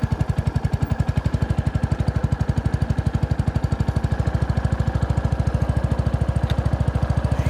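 Kawasaki Estrella's air-cooled single-cylinder four-stroke engine idling through its exhaust, a steady, even thumping at about ten beats a second.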